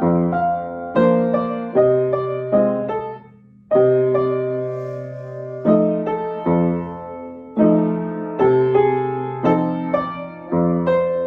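Piano played slowly while sight-reading: struck chords over a bass line, about one a second, each fading after it is played, with a brief break about three seconds in before a chord held for about two seconds.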